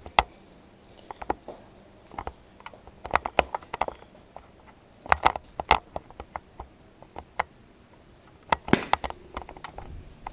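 Scattered, irregular light knocks, clicks and scuffs, as of footsteps and a toy foam-dart blaster being handled, with small clusters about three, five and nine seconds in.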